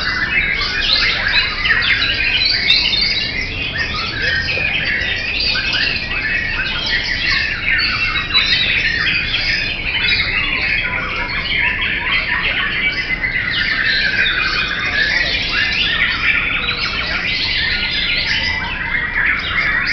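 Several caged white-rumped shamas singing at once: a loud, dense chorus of overlapping song with no pause.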